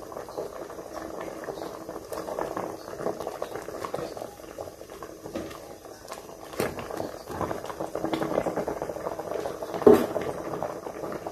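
Mushroom curry boiling in a metal pot, a steady crackling bubble, with a ladle stirring through it. About ten seconds in there is one brief, louder clunk.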